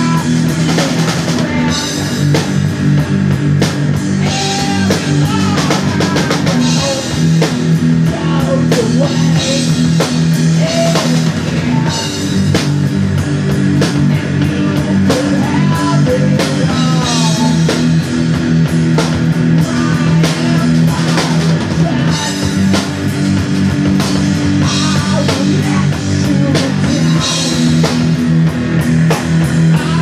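Rock band playing live: a drum kit keeping a steady beat under electric bass and guitar.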